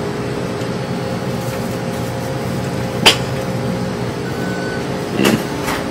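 Steady hum of a shop's refrigerated drink coolers and air handling. A single sharp click comes about three seconds in, and two softer knocks come near the end.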